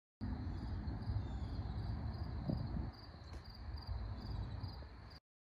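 Steady high chirring of insects over a low rumble of background noise, starting and cutting off abruptly.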